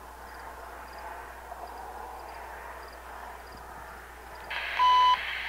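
A distant train's steady noise, then about four and a half seconds in a scanner radio opens with a sudden hiss and a short beep. The beep leads into a radio voice, as when a trackside hot box detector starts its broadcast.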